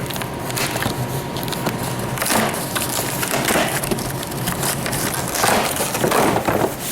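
A parts box and its packaging being handled and opened: irregular crinkling and crunching of cardboard and wrapping, in bursts about two and a half seconds in and again toward the end.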